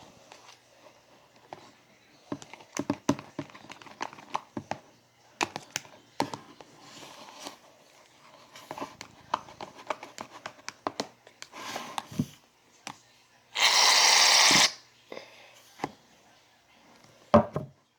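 Clicks, taps and crinkly rustling as slime containers and ingredients are handled and stirred. About fourteen seconds in comes a loud hiss lasting about a second, and a sharp knock follows near the end.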